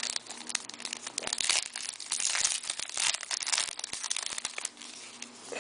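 Hockey card pack wrapper being crinkled and torn open by hand, in uneven bursts of crackling with a few sharp clicks.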